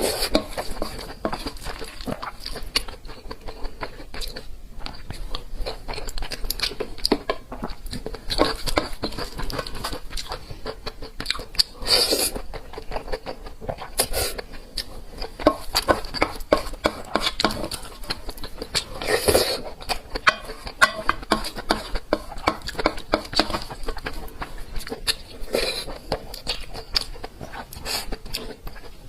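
Close-miked chewing and mouth sounds of a person eating, a steady run of small wet clicks with a few louder, crunchier bites.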